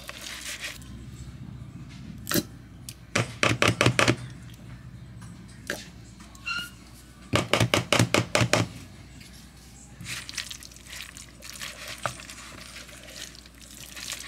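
Kitchen handling over a plastic mixing bowl: two quick runs of sharp tapping, each about a second long, then softer wet stirring as shredded chicken is mixed with barbecue sauce.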